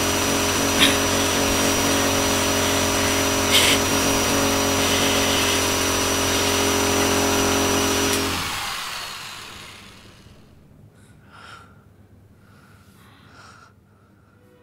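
Loud, steady whirring of an electric motor, of the power-tool or vacuum-cleaner kind, with a hum and a hiss and a couple of sharp clicks; a little past the middle it dies away, leaving quiet with a few faint short sounds.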